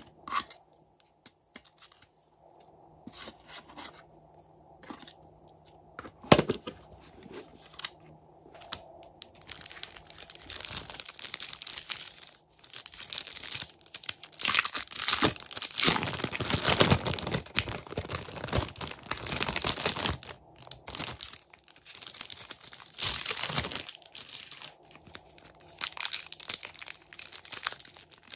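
A thin clear plastic bag holding slime crinkling in long uneven bursts as it is handled and opened, after a few light clicks and one sharp tap of plastic pieces near the start.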